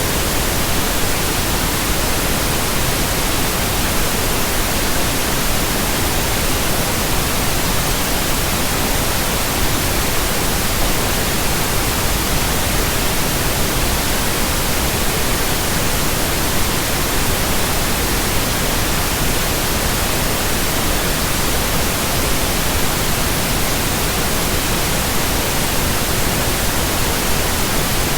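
Steady pink noise: an even, unchanging hiss across all frequencies, generated for relaxation and sleep.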